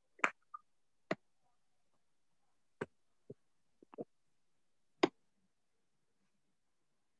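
About seven scattered, sharp clicks and light knocks, close to the microphone. The loudest come just after the start and about five seconds in, with a quick pair near four seconds.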